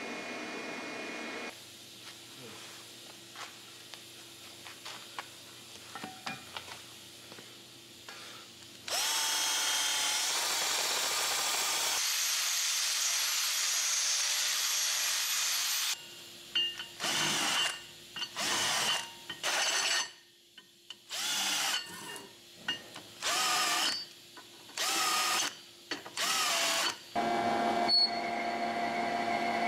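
Steel-working tools in turn. A tap turned by hand in a steel block gives faint ticks. About nine seconds in, an angle grinder spins up with a rising whine and grinds a steel plate, then cuts in a string of about seven short bursts. In the last couple of seconds a lathe runs steadily.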